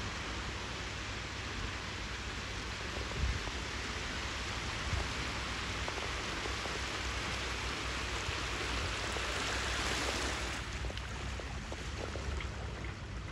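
Rushing, splashing water with a low rumble underneath; the rush eases about ten and a half seconds in.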